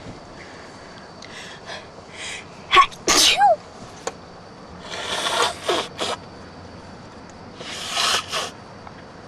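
A woman sneezes loudly about three seconds in, after a few quick breathy inhales. Two more breathy bursts follow, the first with a brief vocal sound.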